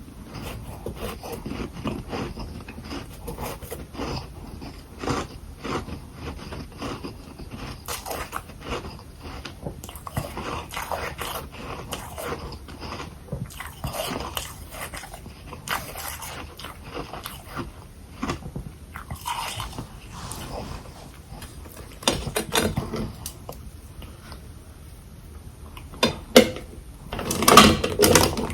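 Close-miked biting and chewing of frozen humidifier freezer frost balls: a dense run of crunches throughout, loudest in a few big bites near the end.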